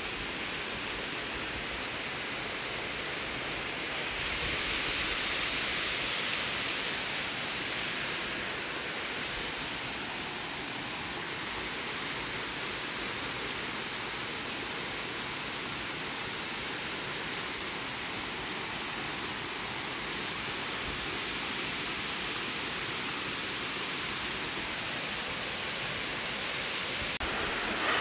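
Steady rush of falling water from a waterfall, growing a little louder for a few seconds about four seconds in.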